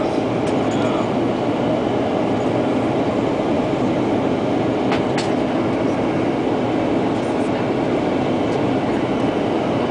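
Steady roar of cabin noise inside a WestJet Boeing 737 on its descent to land: engine and airflow noise heard from a window seat. A faint click comes about halfway through.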